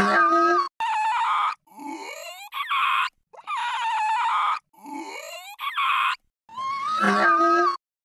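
Sound-effect animal calls meant as those of Eohippus, an extinct early horse: about six short cries in a row, some sweeping upward in pitch, each cut off sharply before the next.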